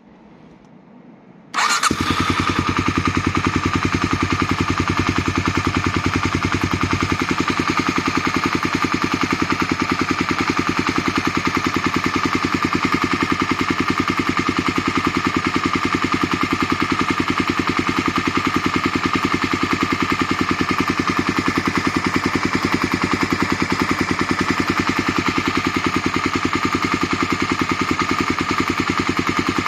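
Suzuki 250SB motorcycle's single-cylinder four-stroke engine starting about a second and a half in, then idling steadily. It runs without the abnormal engine noise, the cam chain tensioner having just been adjusted.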